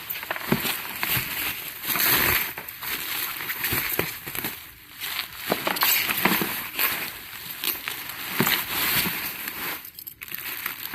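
Packaging rustling and crinkling with irregular crackles and clicks as a new plastic cooler box is unwrapped by hand.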